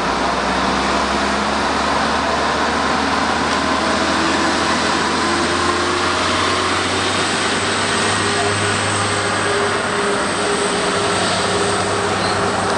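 Diesel train engine running under load with a steady low drone that rises slightly in pitch and grows stronger about seven seconds in, over continuous rolling noise as the train moves off.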